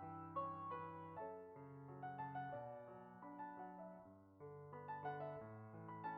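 Background piano music: a slow melody of single notes over held low bass notes.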